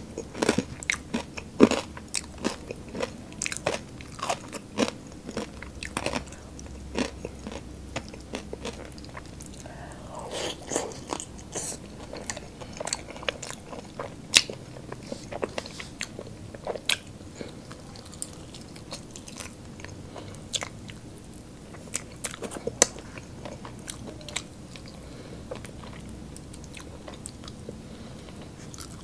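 Close-miked eating of spicy fried chicken wings: biting and chewing, a quick run of sharp crunchy clicks for the first several seconds that thins to scattered single bites and mouth sounds later on.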